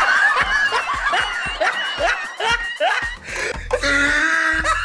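Comic laugh-track sound effect: repeated short bursts of snickering laughter over background music.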